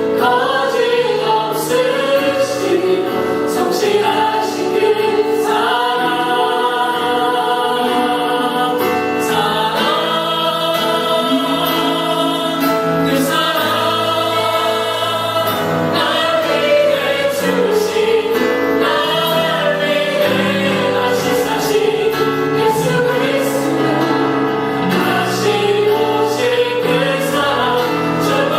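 Choir singing a hymn with sustained chords beneath the voices.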